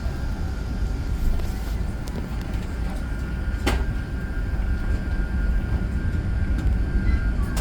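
Airbus A380 cabin noise: a steady low rumble of the airliner with a faint steady high tone over it, and a single sharp click about three and a half seconds in.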